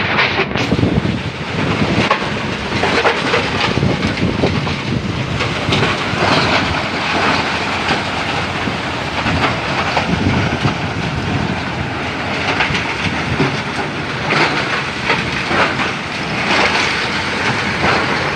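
A selep milling machine running steadily under load, a loud, continuous clattering mechanical noise.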